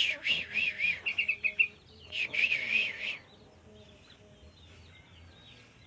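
Sooty-headed bulbul (burung trucuk) singing two short warbling phrases, one at the start and one about two seconds in, followed by faint scattered chirps.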